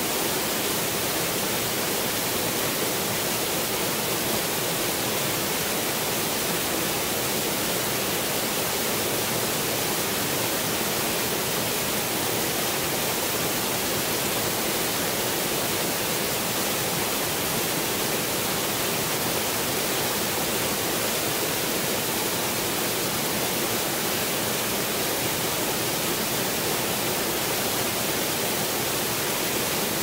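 A small waterfall, several streams of water pouring over a low stone weir into a churning pool: a steady, even rush of falling water with no change.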